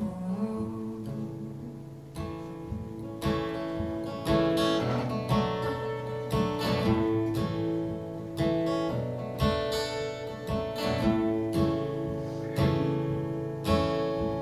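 Acoustic guitar played alone, chords strummed and picked, starting soft and growing fuller about two seconds in.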